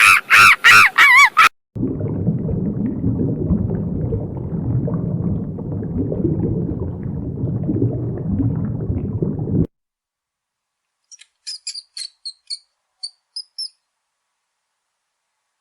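Rapid, loud, pitched honking calls, goose- or fowl-like, for about a second and a half. Then about eight seconds of dense, noisy low sound that cuts off suddenly, and after a pause a scattering of short high-pitched chirps.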